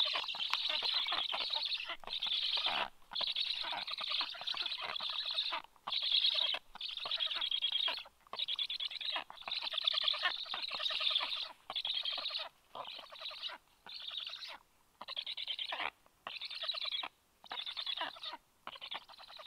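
Black stork nestlings calling in a run of rasping, wheezy calls, each under about a second and a half, separated by short gaps that grow more frequent in the second half. These are the nestlings' food-begging calls.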